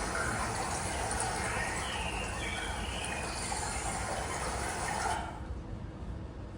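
Forest soundscape: birds chirping over a steady rush like running water, cutting off abruptly about five seconds in.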